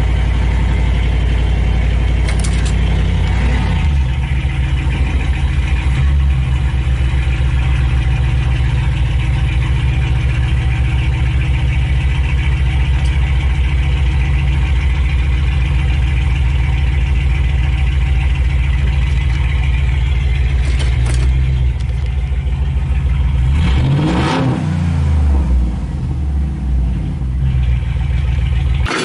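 2008 Jeep Grand Cherokee Hemi V8 with a plain pipe welded in where the muffler was, running loud and heard from inside the cab as the car creeps forward. Near the end the engine note dips and climbs again, and it cuts off at the very end.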